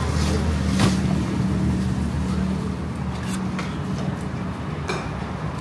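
Motor vehicle engine running steadily, fading after about three seconds, with scattered clicks and clatter.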